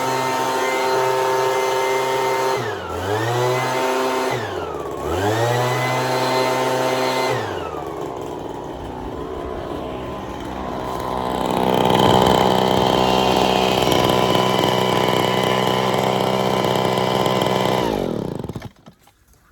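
Two-stroke backpack leaf blower engine running fast. Its revs drop and pick back up twice, then it settles at a steady lower speed, and near the end it is shut off, winding down in falling pitch. It is running again after repair work on its fuel lines.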